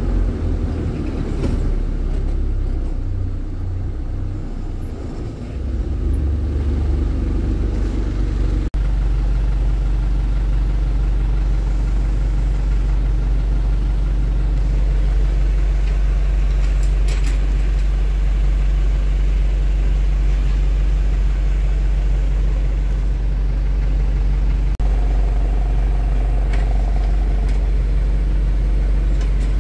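Dump truck's engine running with a steady low drone while the truck reverses up a slope to be loaded. The sound is more uneven for the first several seconds, and it changes abruptly about 9 s and 25 s in.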